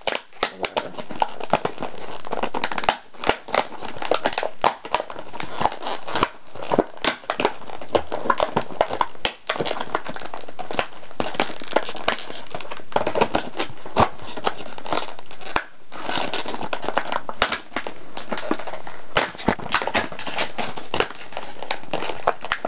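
Stiff clear plastic blister packaging of a toy crinkling and crackling as it is handled and pulled apart, with many sharp clicks and snaps throughout.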